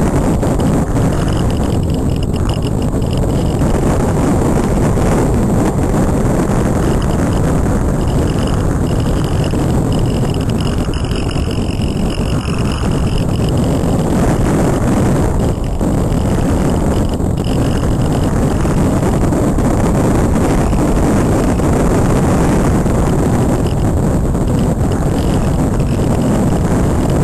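Loud, steady rush of airflow over the onboard camera microphone of a Multiplex Cularis model glider in flight. A faint high whine comes and goes several times.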